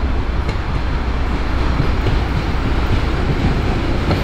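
Narrow-gauge diesel locomotive running as it approaches hauling passenger coaches: a steady engine drone over the rumble of wheels on the rails, with a few light clicks near the end.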